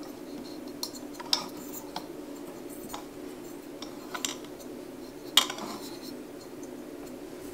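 Small metal tools and parts being handled: a series of about six sharp clinks and taps, the loudest about five and a half seconds in with a brief ring, over a steady low hum.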